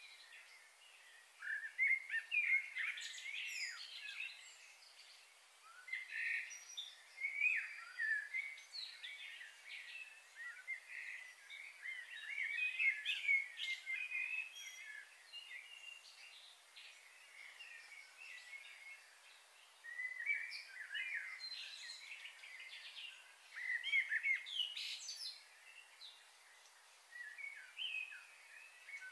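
Songbirds chirping and singing in several bouts a few seconds long, with short gaps between, over a faint steady outdoor hiss.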